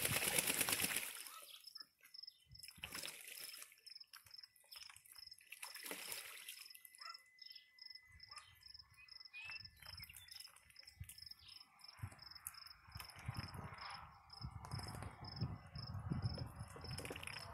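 A duck bathing in a shallow plastic kiddie pool, splashing water hard in the first second, then with occasional smaller splashes and sloshing. An insect chirps steadily at an even rapid rate throughout.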